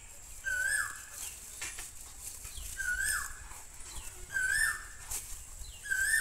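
An animal calls four times, one short note each time that rises and then drops, repeated at uneven gaps of one and a half to two and a half seconds. A few sharp clicks fall between the calls.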